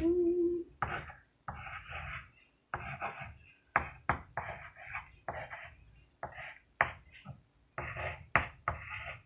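Pencil writing and drawing on a sheet of paper on a wooden table: a series of short scratchy strokes, about one or two a second, some with a light tap as the lead meets the paper. A hummed note trails off just at the start.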